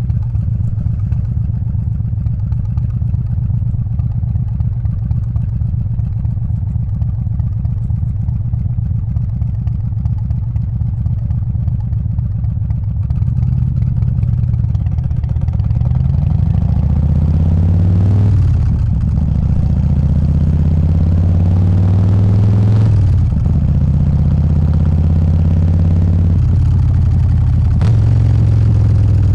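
Harley-Davidson Softail's 124-cubic-inch S&S Evo V-twin idling with a steady pulsing beat. About halfway through it pulls away, its note rising through two gear changes, then settles into a steady cruise.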